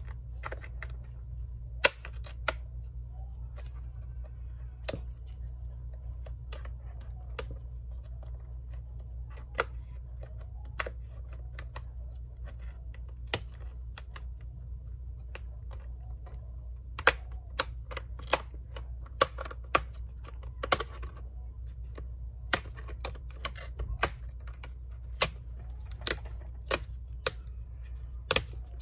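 Sharp plastic clicks and snaps as a plastic pry tool works the one-piece screen bezel of a Lenovo Legion Y740 laptop loose from its clips. The clicks are scattered at first and come in quick succession from a bit past halfway, over a steady low hum.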